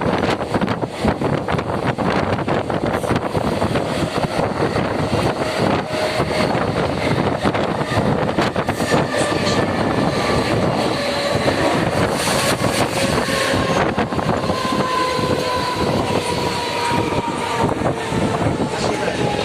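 Mumbai suburban local electric train running, heard on board: a steady rumble and rattle of wheels on track with many quick clicks. Over the second half a whine slowly falls in pitch.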